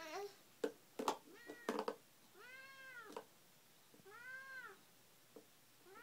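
A few sharp plastic knocks in the first two seconds, then two drawn-out calls that rise and fall in pitch, each under a second long, about two seconds apart.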